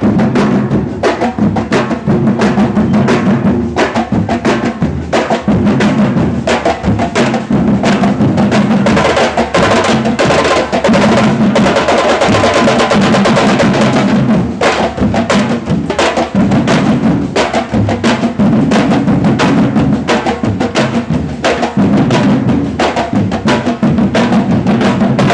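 Batucada drum group playing a fast, continuous samba rhythm of deep bass drums and sharper snares and other hand percussion, with a denser, quicker stretch of strokes about halfway through.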